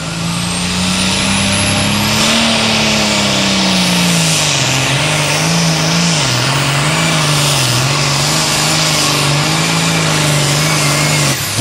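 Super Farm class pulling tractor's turbocharged diesel engine at full throttle under the load of the sled. A high turbo whistle rises over the first two seconds. The engine pitch climbs, then sags and wavers as the tractor loads down, and the sound cuts off abruptly near the end.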